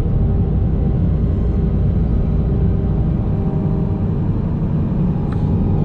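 Road and engine noise inside a moving car: a steady low rumble from the tyres and engine at cruising speed.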